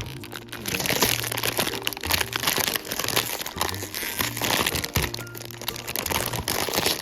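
Blind-box packaging crinkling and crackling as it is opened and unwrapped by hand, dense and irregular throughout. Background music with steady low bass notes plays under it.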